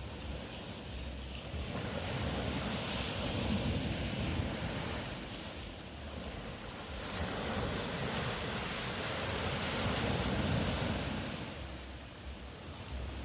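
Ocean waves washing onto the shore: surf noise that swells twice, each wave rising and fading away over several seconds.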